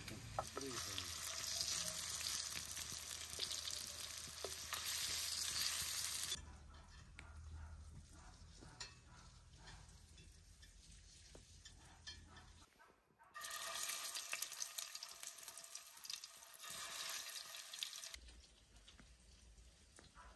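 Potato patties with pork stuffing frying in hot oil in a pan, sizzling. The sizzle is loud for about the first six seconds, drops to a faint crackle with scattered clicks, and comes back loud from about thirteen to eighteen seconds in.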